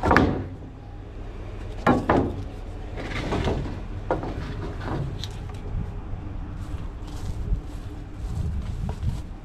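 Wooden boards knocking and thudding as they are pulled off a steel trailer deck and handled. The loudest knocks come at the start and about two seconds in, with lighter ones a little later, over a steady low rumble.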